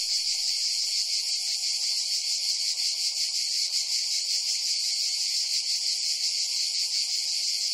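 Steady, unbroken high-pitched shrilling of a summer insect chorus in woodland.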